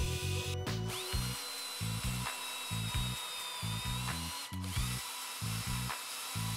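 Electric drill motors working an aluminium bar: a drill press hums briefly at the start, then a hand drill twice spins up to a steady high whine while drilling and threading the holes. Background music with a steady bass beat runs underneath.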